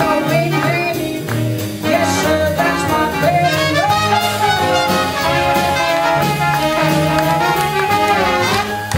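Traditional jazz band playing live: trumpet, tenor saxophone and trombone over piano, double bass and drums, with the horns holding long notes from about four seconds in.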